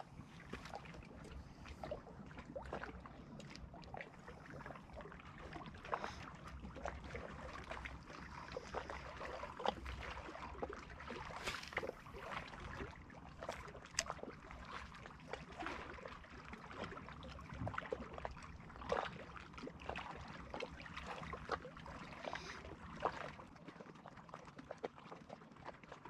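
Small waves lapping and splashing against a rocky lakeshore in irregular little slaps, with wind rumbling on the microphone.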